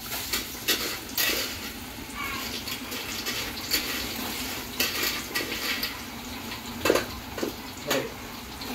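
Handfuls of thin raw plantain (nendran) slices dropped into a large pot of hot oil, which breaks into a loud sizzle the moment they go in and keeps frying with a dense hiss and constant crackling as the next batch of banana chips cooks.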